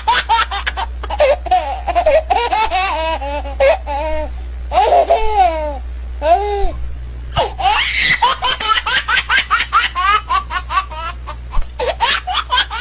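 A parrot mimicking a small child's happy laughter: runs of quick giggling pulses with rising and falling pitch, pausing briefly about halfway through.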